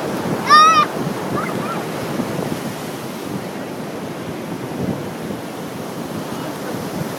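Surf washing on a beach with wind buffeting the microphone. About half a second in, a brief high-pitched wavering cry sounds over it.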